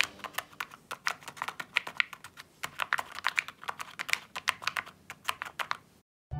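Handmade paper pop-it fidget toy being pressed, its folded paper bubbles giving a quick, irregular run of sharp little clicks that stops near the end.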